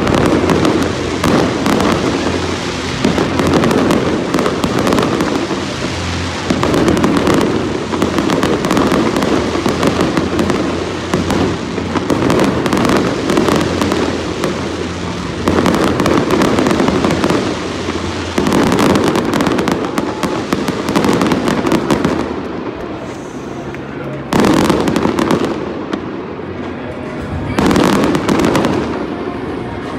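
Aerial fireworks display: shells bursting and crackling almost without pause, in repeated swells, easing briefly twice near the end.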